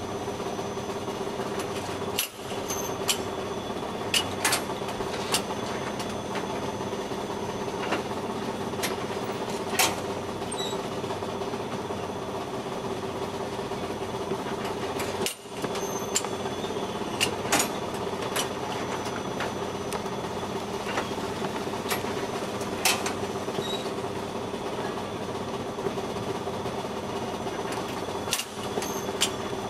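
APACK automatic mini-bread baking machine running with a steady hum, with scattered sharp clicks and knocks from its mechanism and the batter tray. The hum drops out for a moment three times: about two seconds in, about halfway, and near the end.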